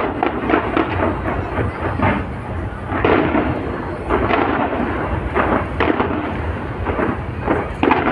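Aerial fireworks going off in quick succession, overlapping bangs over a continuous low rumble.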